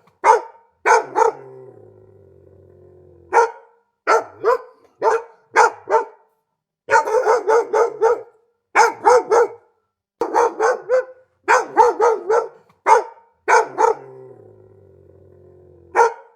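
Dog barking repeatedly in quick runs of several sharp barks, with short pauses between the runs.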